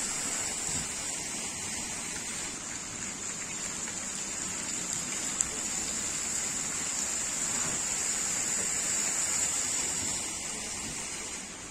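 Fountain jets spraying up from the water and splashing back down, a steady hiss of falling water that eases off near the end as the jets die down. A single sharp click about halfway through.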